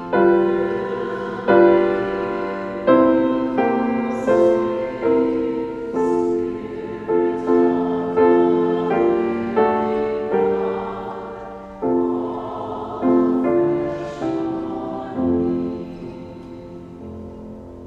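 A choir singing with piano accompaniment: a run of struck chords that each die away, with voices held over them. The piece fades over the last couple of seconds.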